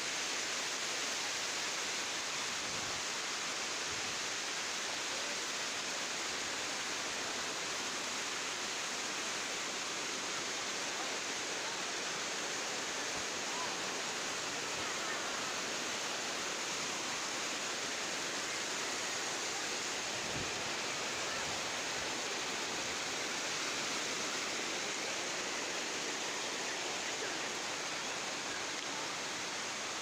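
Waterfall rushing: a steady, even roar of falling water that does not change.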